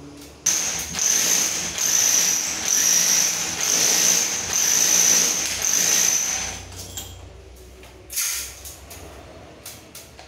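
Ryu RRH 26 rotary hammer driving a 65 mm core bit into a wall. It starts suddenly about half a second in and runs under load for about six seconds, its high whine swelling and dipping, then stops. A short second burst follows about eight seconds in.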